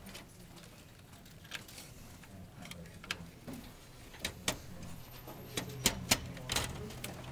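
Scattered clicks and light knocks of a hard drive being handled and slid into the metal drive bay of a desktop computer case. The clicks come closer together in the second half.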